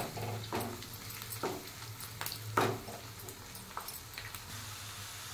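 Chopped onions and green chillies frying in oil in a non-stick kadai, stirred with a wooden spatula: a faint sizzle, with about six short scrapes and knocks of the spatula against the pan, over a low steady hum.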